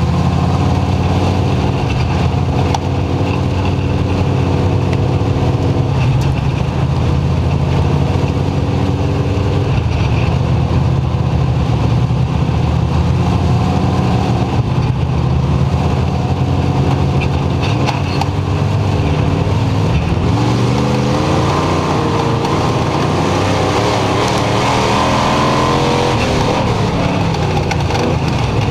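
Dirt-track race car engine at racing speed, loud from the in-car camera in the cockpit. The engine note holds fairly steady, then rises and falls with the throttle through the turns in the later part.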